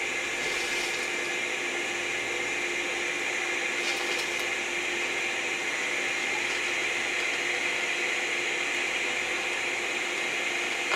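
DC TIG welding arc, scratch-started from a small 100-amp stick welder fitted with a TIG torch, burning with a steady, even hiss and a faint steady tone underneath.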